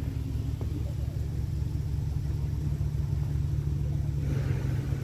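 Vehicle engine idling with a steady low rumble; a broader rushing noise comes up about four seconds in.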